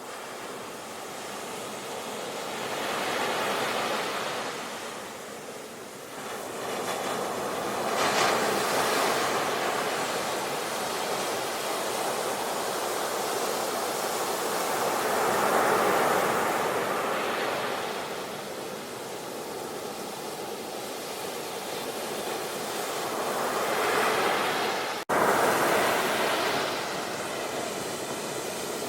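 Sea waves washing onto a shore, swelling and falling back in slow surges every several seconds. There is a sudden, very short break about 25 seconds in.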